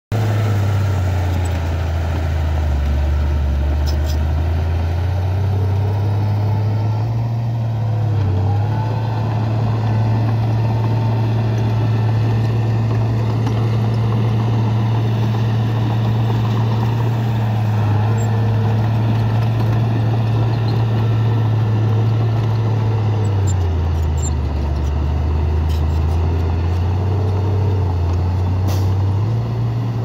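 Small crawler bulldozer's diesel engine running steadily as it pushes dirt. Its note drops lower for a few seconds twice, about two seconds in and again about 24 seconds in.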